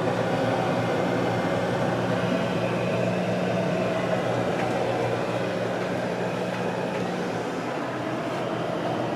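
2004 Whirlpool Sidekicks refrigerator-freezer running, its compressor and fan making a steady hum, the sign that it works after more than 13 years sealed in its box.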